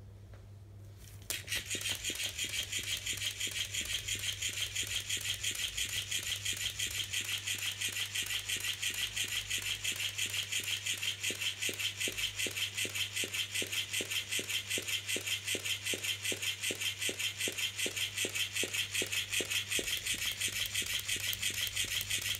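FlippetyFish motorised flopping-fish cat toy running: its motor whirs and the tail flaps in a fast, steady rhythm. It starts about a second in and cuts off suddenly near the end.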